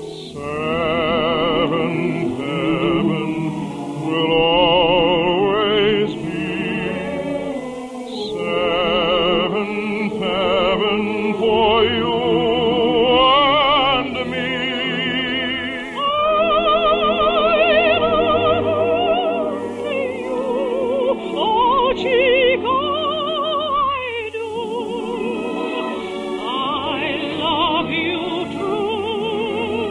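Operatic singing with strong vibrato over orchestral accompaniment, in long sustained phrases with short breaks between them. It is an early-1950s radio broadcast recording with a dull, narrow sound.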